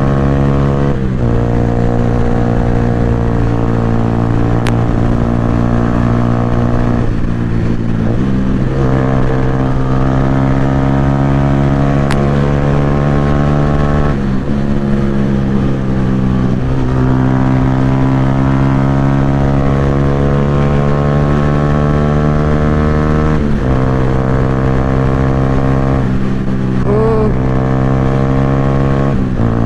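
Yamaha R15's single-cylinder engine through a loud aftermarket Akrapovic exhaust while riding. It holds steady revs, and the pitch steps and slides several times as the rider shifts gear and changes throttle. Wind noise on the camera mic runs underneath.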